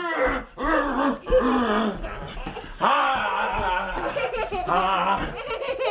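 Young children and a man laughing together, in near-continuous high-pitched peals with a short break about halfway through.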